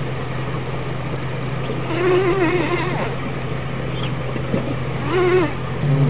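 Violet carpenter bee (Xylocopa violacea) buzzing in flight, a steady low hum from its wings. Twice a short wavering higher-pitched sound cuts in over the buzz, about two seconds in and again near the end.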